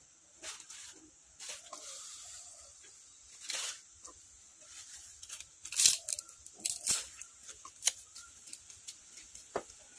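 Raw julienned potato sticks tipped into a large aluminium cooking pot, with scattered short clicks, rustles and light scrapes as they land and settle; the sharpest clicks come around the middle.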